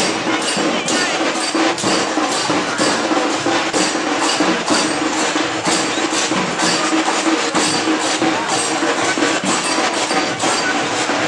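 Ganpati visarjan procession band playing loud percussion, strikes keeping a steady beat of about two a second, with a held tone running under them.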